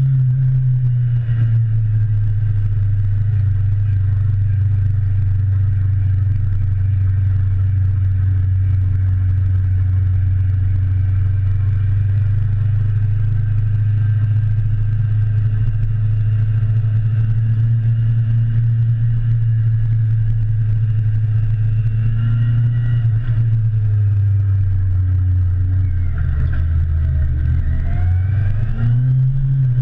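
Motorcycle engine running at a steady cruise, with wind rushing over the mount. A few seconds before the end the revs drop off, then climb again as the throttle is opened.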